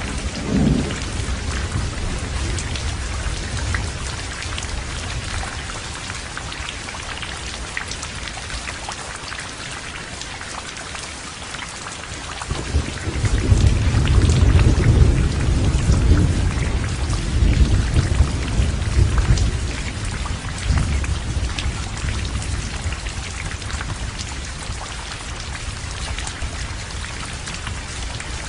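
Heavy rain falling steadily with thunder. A low rumble fades out in the first few seconds, then a louder, long rumble of thunder begins about halfway through, lasts several seconds and slowly dies away under the rain.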